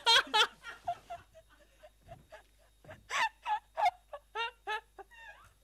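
A woman's wordless giggling in short high bursts, quieter at first and loudest about three to four seconds in.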